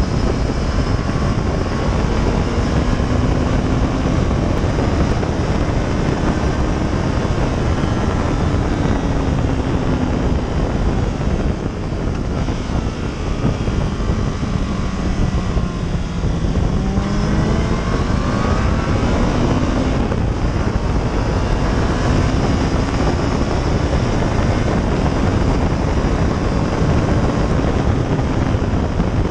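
Sports motorcycle engine at speed, heard from an onboard camera, its note rising and falling as it is ridden through the gears, under heavy wind rush on the microphone. About halfway through the engine note drops as the bike slows, then climbs again as it accelerates away.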